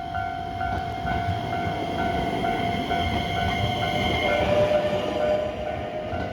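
Railway level crossing warning bell ringing in steady strokes about twice a second, over the rumble of a train on the line. A second, slightly lower tone joins about four and a half seconds in.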